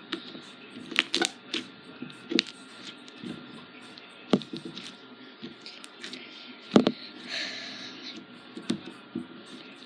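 Homemade slime worked by hand, giving sharp clicking pops at irregular intervals, about seven in all, the loudest near the two-thirds mark.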